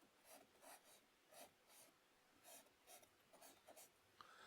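Faint, short scratchy strokes of a paintbrush working paint onto the painting surface, about a dozen, irregularly spaced.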